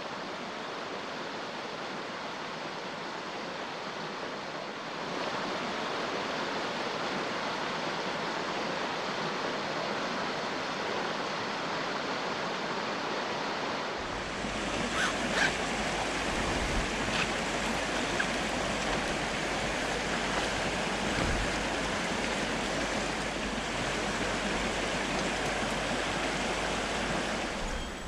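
Steady rush of a mountain stream flowing over rocks. About halfway through, a deeper low rumble joins the rushing water.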